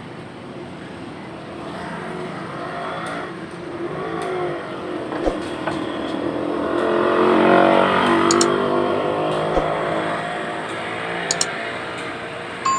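Motor vehicle engines in street traffic, one accelerating and growing louder to a peak about halfway through, then easing off.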